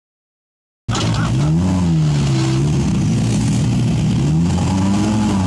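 Silence, then about a second in a rally car's engine starts sounding loud and close, its revs rising and falling slowly twice as the throttle is worked.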